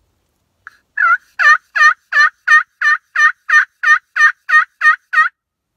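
Turkey pot call worked with a striker. After a light tick it gives a run of about thirteen evenly paced, loud hen-style yelps, roughly three a second.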